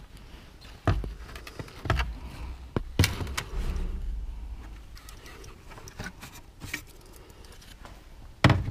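Plastic clicks and knocks as a bulb holder is pressed and clipped into a Peugeot 307 tail-light housing and the lamp unit is handled: sharp clicks about once a second over the first three seconds, then quieter rubbing of plastic, and another knock near the end.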